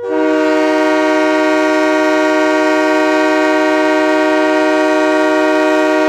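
Ice hockey arena goal horn, the Tucson Roadrunners' goal horn, sounding one long steady blast: a chord of several tones that comes in suddenly at full strength, signalling a goal. It is heard dry, without added reverb.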